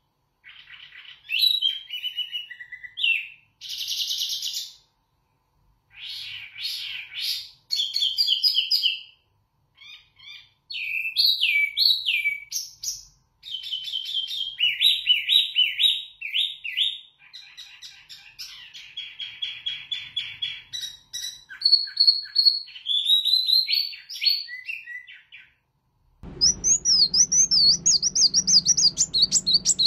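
Caged wambi mini songbird singing loud, clear, varied phrases of whistles, slurred notes and rapid trills, separated by short pauses. Near the end the sound cuts suddenly to fast, repeated chirping trills over a low background hum.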